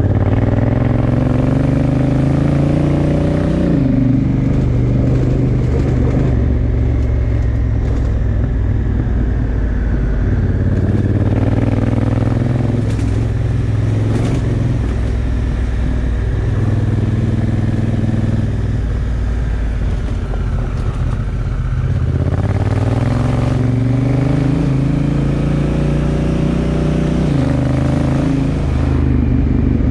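Honda Africa Twin's parallel-twin engine pulling the motorcycle along a gravel track, its pitch climbing and then dropping at a gear change near the start and again near the end, over the crunch of gravel under the tyres.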